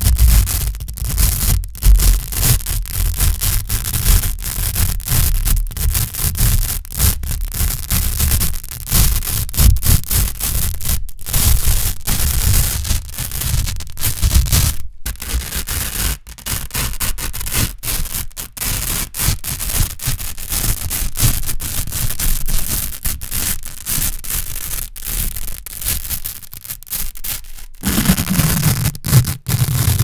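Hook-and-loop (Velcro) strips, a white hook side and a blue loop side, worked against each other close to the microphone: a dense, crunchy, scratchy crackle, broken by a few very short pauses.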